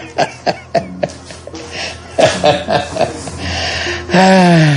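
A man's voice laughing in quick short bursts, then breathy laughter, ending in a long drawn-out vocal sound that falls in pitch near the end.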